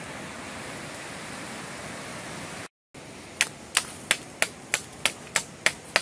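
Steady rush of a river running high and muddy after rain, with a strong waterfall. A bit under three seconds in it cuts off, and a run of sharp, evenly spaced clicks follows, about three a second.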